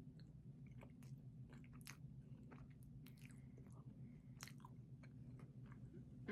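Close-miked chewing of a soft cream-filled donut: faint scattered wet mouth smacks and clicks over a steady low hum.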